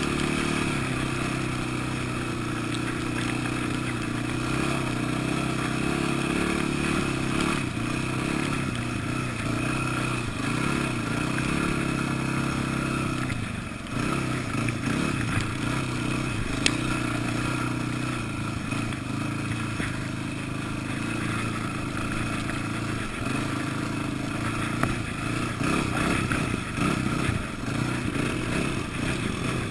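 Engine of a handlebar-steered off-road vehicle running under way, a steady pitched drone that drops off briefly about halfway through and then picks up again. A single sharp click comes a few seconds after the dip.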